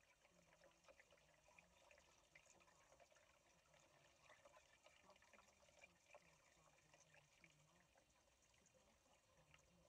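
Faint trickle of water poured from a plastic watering can through a funnel into a water pump's priming port, filling the pump casing to test a patched frost crack for leaks.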